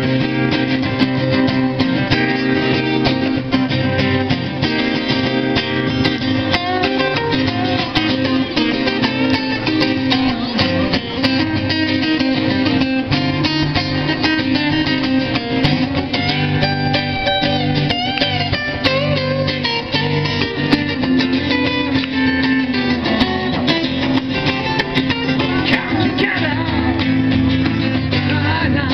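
Live band music with acoustic guitars strumming and plucking, played without a break.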